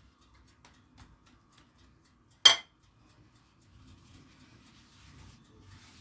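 A pastry brush set down against a bowl of egg wash, making one sharp, ringing clink about halfway through, with a few soft taps before it. Faint rustling follows as thin gullash pastry sheets are handled.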